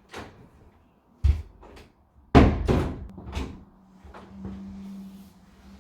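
A few knocks and thuds, the loudest cluster about two and a half seconds in, followed by a faint steady low hum.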